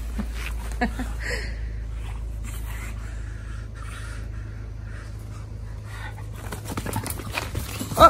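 English bulldog breathing hard in repeated noisy breaths while gripping and tugging a rope toy, with a few short sounds near the end.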